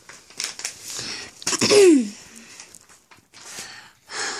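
Paper rustling and creasing as a sheet is folded in half, with a short, loud vocal sound about a second and a half in that starts noisy and falls in pitch.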